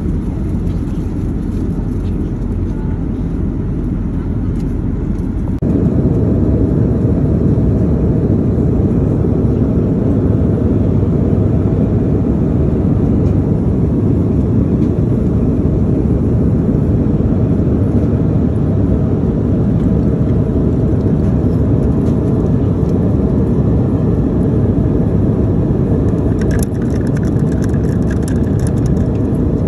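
Steady airliner cabin noise in flight: the even rumble of the engines and airflow, which steps up in level about six seconds in. A few light clicks near the end.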